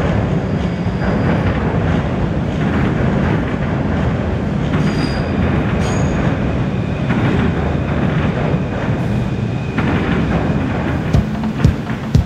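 Passenger train crossing a riveted steel truss railway bridge overhead: a loud, steady rumble of wheels on rails and steelwork, with brief high wheel squeal about halfway through.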